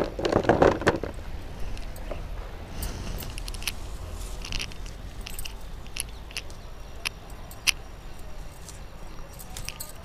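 Green chilli pods being harvested off a chilli plant: a scattered string of crisp snaps and clicks with faint rustling of leaves, the sharpest snap about three-quarters of the way through.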